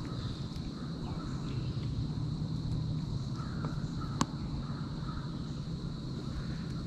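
Crows cawing repeatedly, alarm calls that the angler takes as a warning of something moving nearby in the woods. A single sharp click about four seconds in.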